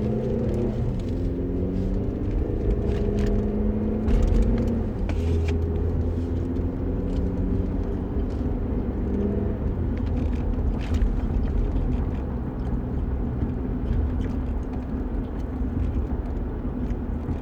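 A vehicle's engine and road noise: a steady low rumble with a hum that shifts slowly in pitch for the first several seconds.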